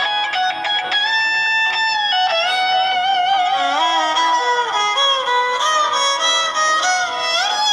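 Background instrumental music: quick plucked-string notes, then a held, wavering melody line that bends between notes.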